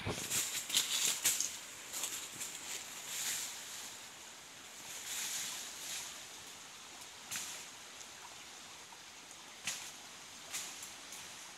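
Dry salak palm fronds and leaf litter rustling and crackling in irregular bursts as they are disturbed, busiest in the first few seconds, with a few short sharp snaps later on.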